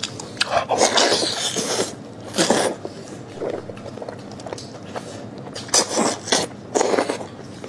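A person loudly slurping and sucking braised monkfish meat off the bone. There is one long slurp over the first two seconds, then several shorter ones.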